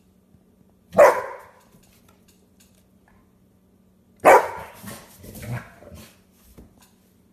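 Bernese mountain dog barking twice, about three seconds apart, the second bark followed by a few quieter, lower woofs.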